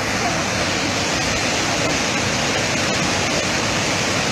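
Muddy flash-flood water cascading over a rocky waterfall, a loud, steady rush of water with no let-up.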